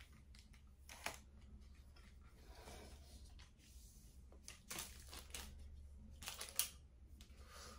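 A tripod stand's legs and centre column being handled and extended: faint scattered clicks and rattles of its tubes and joints, a few sharper clicks in the second half.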